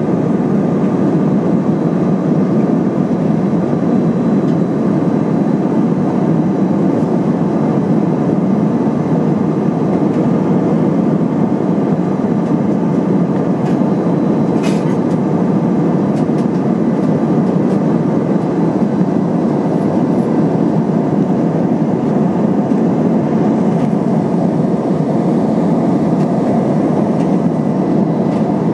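Steady cabin roar of an Airbus A320-232 at cruise, with engine and airflow noise, heard inside the cabin from a window seat behind the wing. A single brief click sounds about halfway through.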